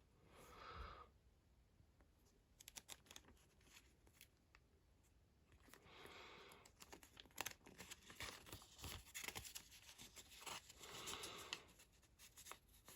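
Pages of a paper instruction booklet being turned by hand, three faint swishes a few seconds apart with small paper clicks between.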